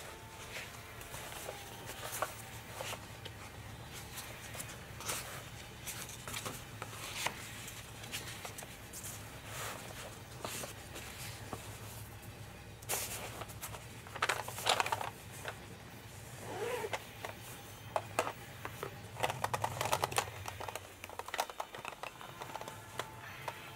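Stiff sketchbook paper rustling and flapping as the pages are leafed through, with louder bursts partway in. Near the end a fabric pencil case is unzipped and rummaged through. A low steady hum runs underneath and cuts off shortly before the end.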